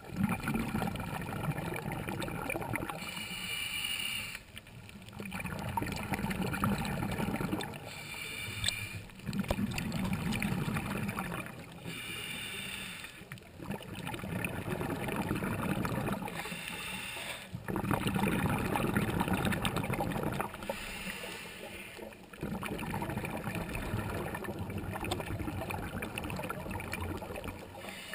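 A scuba diver breathing through a regulator: a short, whistly hissing inhale about every four seconds, each followed by a longer stretch of bubbling exhaled air. The last exhale, from about 22 s on, runs longest.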